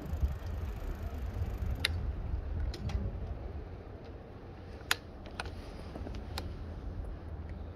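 Low rumble on a handheld phone's microphone as it is carried along, with a few scattered sharp clicks at uneven intervals.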